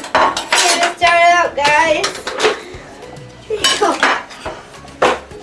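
Cutlery clinking and scraping against plates and dishes, a string of sharp clinks.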